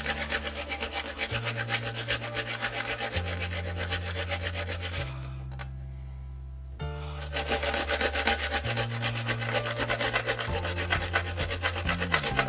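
A cauliflower floret rubbed quickly back and forth across a plastic veggie strip grater, making fast, rhythmic rasping scrapes at several strokes a second. The grating stops for about two seconds in the middle, then resumes. Background music with low bass notes plays underneath.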